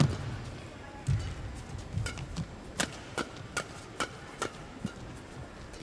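Badminton rally: sharp cracks of rackets striking the shuttlecock, picking up to a fast flat exchange of about two or three hits a second, with thuds of players' feet landing on the court.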